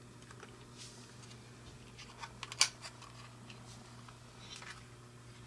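A few sharp small clicks of hard plastic and metal parts being handled on a workbench, bunched about two to three seconds in, then a faint scratchy rustle near the end, all over a low steady hum.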